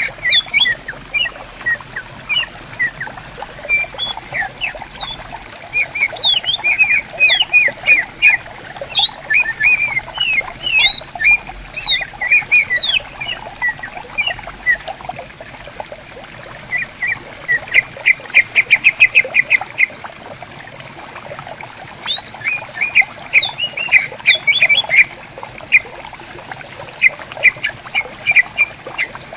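Several leafbirds (cucak ijo) calling back and forth with quick sharp chips and whistled notes, one breaking into a rapid trill of about ten notes at a little past halfway. A stream murmurs steadily underneath.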